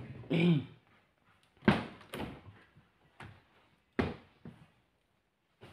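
A refrigerator lid being handled and opened: several knocks and thunks, the strongest under two seconds in and again about four seconds in.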